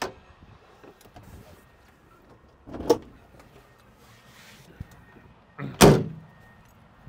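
Latch clicks and metal clunks as a Land Rover Defender's bonnet is released and lifted open: a small click at the start, a sharp clunk about three seconds in, and a louder clunk near six seconds.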